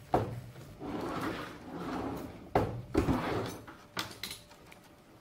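Plastic-coated picture wire being pulled off its spool and drawn along a wooden folding rule on a wooden table: a drawn-out sliding rasp in the first half, then several sharp clicks and knocks as it is handled.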